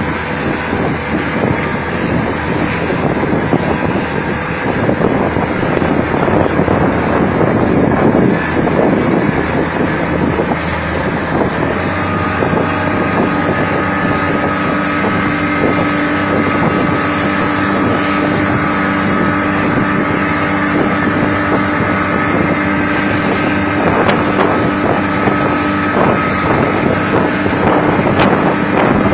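Boat engine running steadily, with wind buffeting the microphone; a steady engine hum stands out more clearly from about halfway through.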